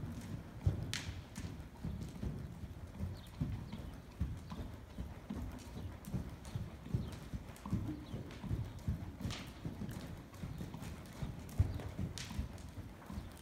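Draft horses trotting on soft indoor-arena dirt footing: a steady rhythm of dull hoofbeats.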